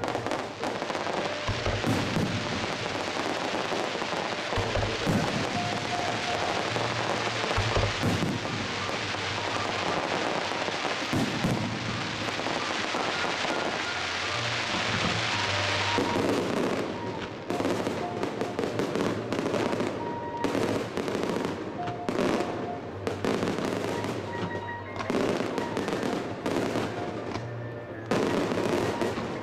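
Aerial fireworks going off: a dense, continuous crackling with bangs through the first half, then separate bangs and crackles in quick succession.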